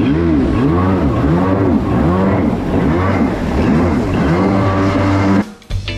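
Kawasaki 650SX jet ski's two-stroke twin engine running under way, its pitch swinging up and down about once a second. It cuts off suddenly near the end and guitar music begins.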